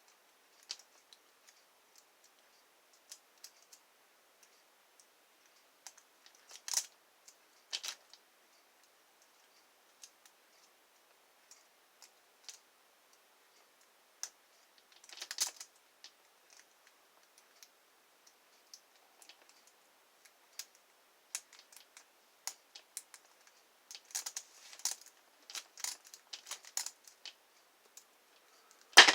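Small metallic clicks and scrapes of a lock pick and tension wrench working the pins of a pin-tumbler lock, in scattered bursts with a sharp click near the end. The pins are binding hard, which the picker takes for security pins.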